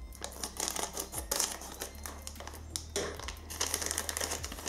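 Plastic packaging bag being pulled open and crinkled in the hands, in irregular crackling bursts, loudest about a second in and again in the second half.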